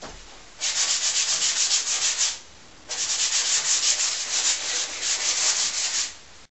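Paintbrush scrubbed rapidly back and forth over a stretched canvas, about five strokes a second, in two long runs with a short pause between them.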